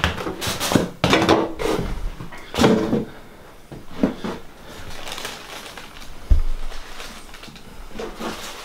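Knocks and clatter of household junk being bumped and handled, several in quick succession over the first few seconds, then a single dull low thump about six seconds in.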